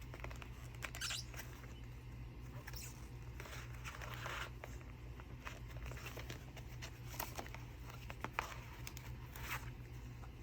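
Pages of a handmade junk journal being turned and handled: irregular paper rustles, crinkles and small taps, with longer swishes about four seconds in and again several times near the end, over a steady low hum.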